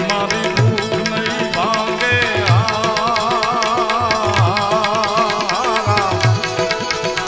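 Live Gujarati bhajan music: tabla strokes keep a steady beat under harmonium. From about a second and a half in until about six seconds, a high melody line is held with a fast wobble over the accompaniment.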